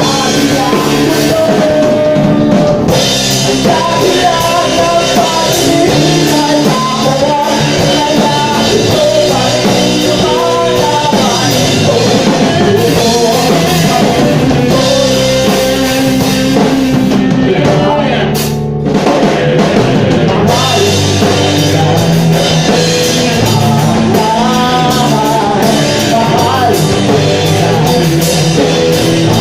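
Live rock band playing a song, with a singer, electric guitar and drum kit. The music thins out briefly about two-thirds of the way through, then carries on.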